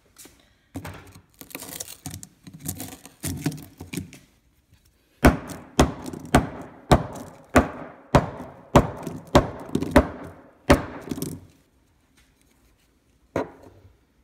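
A screwdriver jabbed repeatedly into a smartphone's shattered glass screen: a few lighter, irregular knocks, then about ten hard, sharp strikes a little over half a second apart, and one last knock near the end.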